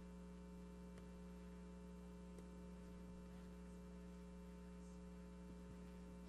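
Near silence: room tone with a faint, steady electrical mains hum.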